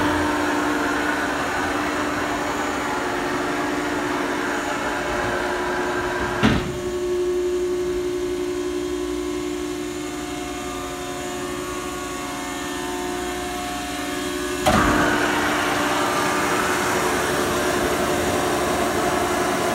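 Balemaster 4230G-8 auto-tie baler's hydraulic power unit running with a steady hum and whine, broken twice by a sharp clunk, about six and fifteen seconds in. It is a little quieter in the middle stretch and louder again after the second clunk.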